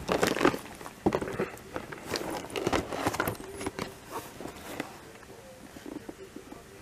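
Handling noise from a cardboard toy box being held and moved by hand: irregular rubs, scrapes and light knocks, thinning out after about four seconds.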